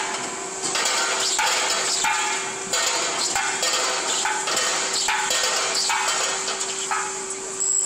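Skew rolling mill forming red-hot steel grinding balls: a steady machine hum and whine, with a rhythmic clatter about every two-thirds of a second as the finished balls drop out into the quench water.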